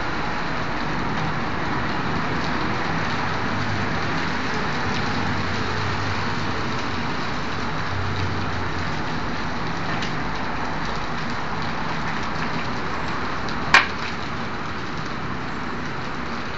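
Steady hissing rush of a large fire burning, with one sharp bang a little before the end.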